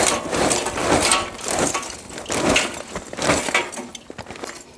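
Fresh charcoal being poured into a kettle grill's charcoal basket onto the burning coals: an irregular clattering, crunching rattle of lumps tumbling and knocking together, dying down near the end.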